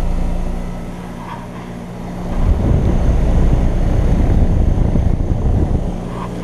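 2010 American Standard Heritage 13 four-ton heat pump outdoor unit running in heat mode just after start-up, with a steady hum. From about two and a half seconds in, a louder rough low rushing rumble lasts about three seconds, then the steady hum returns.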